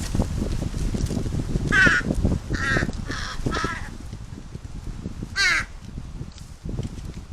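Large-billed crows cawing: one caw about two seconds in, a quick run of three, then another single caw near the end, over a steady low rumble of strong wind.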